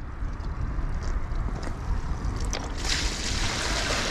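Wind buffeting the microphone as a steady low rumble, with a loud even hiss setting in about three seconds in.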